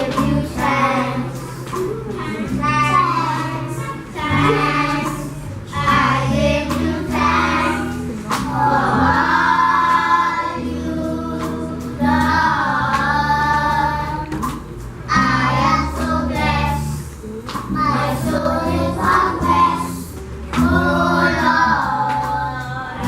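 A group of small children singing a song together over an instrumental accompaniment that holds steady low notes.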